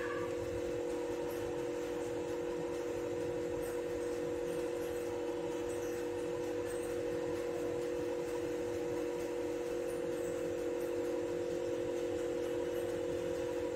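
A steady hum of two held tones, one low and one a little higher, over a faint hiss, unchanging throughout.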